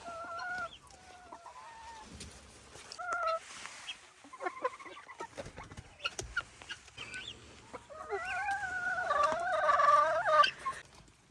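Chickens and guinea fowl calling: a few short wavering calls, then scattered small ticks, then a longer, louder wavering call near the end.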